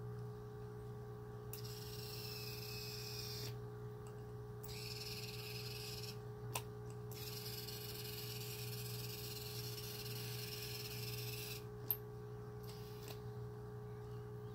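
Ibistek remote-controlled searchlight's motor whirring in several stops and starts, the longest about five seconds, as the light is turned, over a steady electrical hum. Two sharp clicks, about six and twelve seconds in.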